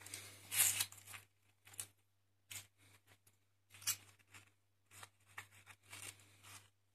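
Brittle, flaky remains of an oxidised steel plate from a rocket stove's combustion chamber crunching and crackling in irregular bursts as they are crumbled between gloved fingers. The metal has burnt away to scale, which the owner thinks has oxidised.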